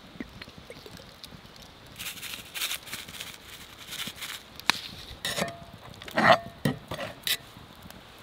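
Seasoning sprinkled over a raw steak in a cast-iron skillet, a run of short scratchy shakes, followed by sharp knocks and clinks as the heavy pan and kitchen things are handled, the loudest about six seconds in.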